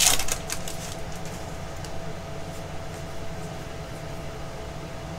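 Baseball trading cards being handled: a short crinkly rustle in the first half second, then a few faint soft card flicks over a steady room hum with a constant tone.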